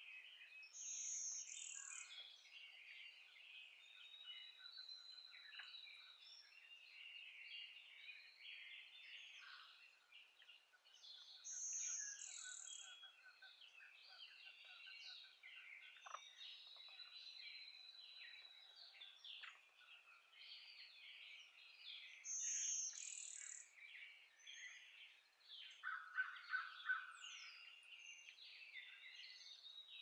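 Faint dawn chorus of many songbirds singing over one another. A higher, thin song rises above the rest three times, about ten seconds apart.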